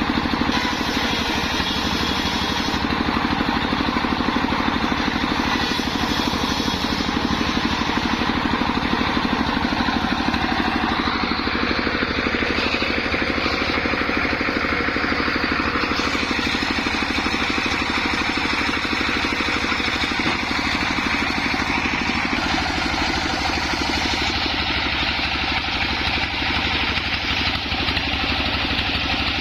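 Homemade bench circular saw running steadily, its motor droning while the blade rips wadang wood lengthwise, with the cutting noise swelling and easing as the boards feed through.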